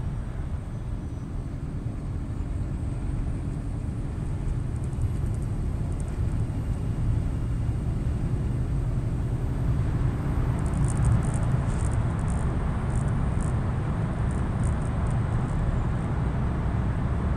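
Steady low rumble of a Scania truck's engine and tyres at motorway speed, heard from inside the cab. About ten seconds in the noise grows fuller as the truck drives into a road tunnel, with a few faint high ticks.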